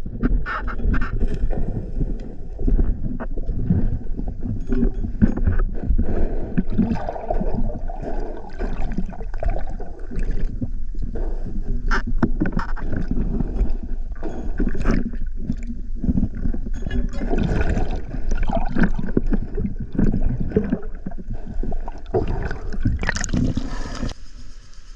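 Muffled underwater water noise picked up by a diver's camera: a churning, gurgling rumble with many knocks and scrapes as the spearfisher swims. Near the end the camera breaks the surface, and a speared fish splashes as it thrashes at the surface.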